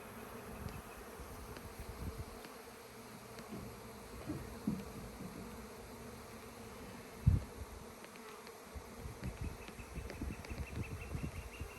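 Honeybees buzzing steadily in a dense cloud around a crowded, opened hive. Scattered low bumps run underneath, with one louder thump about seven seconds in.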